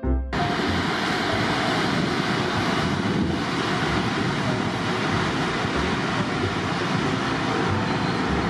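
Wind buffeting the microphone, a steady rushing noise with irregular low thuds, over outdoor city noise as a commuter train runs past on an elevated railway line.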